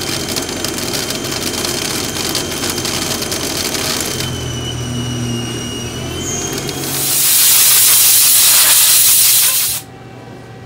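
Haas ST20 CNC lathe turning a metal tube under flood coolant: a steady spindle hum with a thin high-pitched whine from the cut, and coolant spray hissing over the work. About seven seconds in, a much louder spray hiss takes over for about three seconds, then cuts off suddenly.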